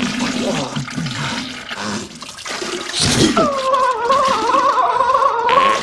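Comedic film sound effects of explosive diarrhea splattering and sputtering into a toilet. A little past halfway, a man's long, wavering, strained cry takes over.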